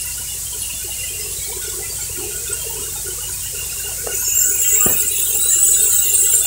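Steady high-pitched hissing squeal that grows louder about four seconds in, with a single sharp click about a second later.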